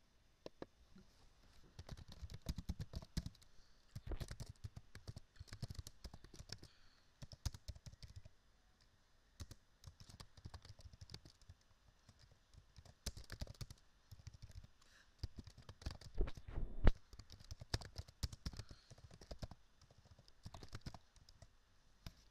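Computer keyboard typing in runs of quick keystrokes, with short pauses between the runs.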